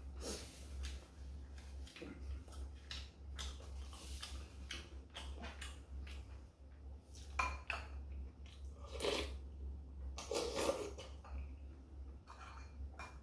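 Spoon and chopsticks clinking and scraping on ceramic bowls and plates at a meal, in scattered small clicks with a few louder moments, over a low steady hum.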